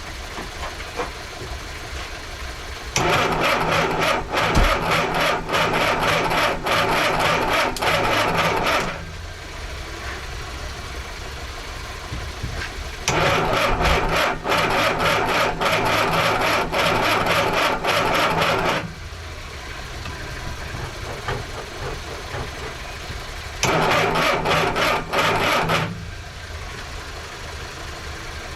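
A Mini's starter motor cranks the engine three times, about six seconds, six seconds and two seconds long, with a fast, even churning rhythm, and each time it stops without the engine catching: a no-start that the owners suspect may come down to spark or a wrong firing order.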